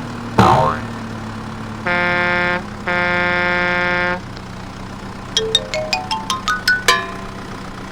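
Cartoon sound effects over a steady engine hum: a quick falling swoosh, then two long horn-like beeps, then a fast rising run of short plucked notes.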